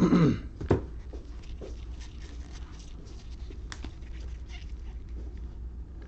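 Two short vocal sounds falling in pitch, one right at the start and another just under a second in, then soft clicks and rustling of trading cards being flipped through in gloved hands.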